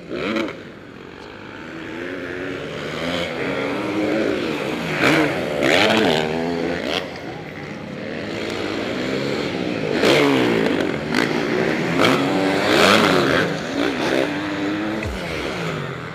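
MX1-class motocross motorcycles racing on a dirt track, their engines revving up and falling back again and again through the gears as riders pass. The loudest passes come about five, ten and thirteen seconds in.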